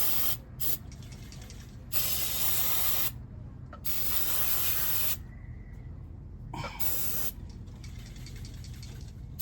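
Aerosol spray can, sprayed in five separate bursts: two short squirts, two longer sprays of about a second each, then one more short squirt. Cleaner is being sprayed onto the dirty oil pressure sensor wiring. A steady low hum runs underneath.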